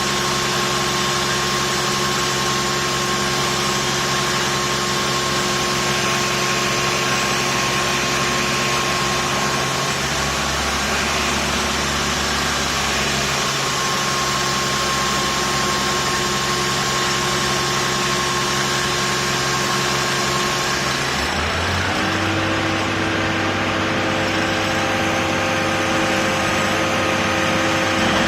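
Construction machinery engine running steadily over a dense mechanical hiss; about three-quarters of the way through, its engine note shifts higher and the hiss thins.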